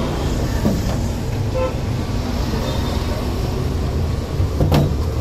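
Steady low rumble of road traffic, with one sharp knock near the end.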